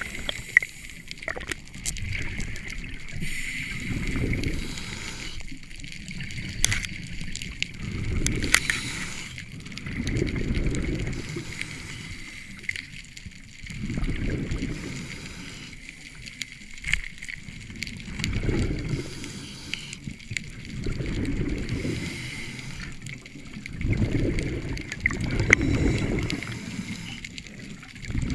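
Scuba diver breathing through a regulator underwater: exhaled bubbles rush and gurgle in surges every few seconds. A few sharp clicks fall between them.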